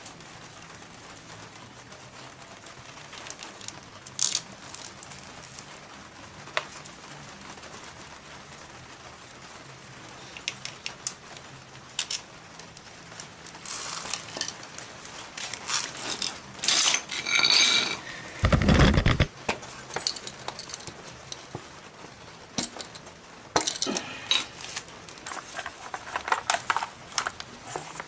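Hand tools and small metal parts clinking and clattering on and off. The clinks grow busier in the second half, with a burst of clatter a little past halfway followed by one deep thump.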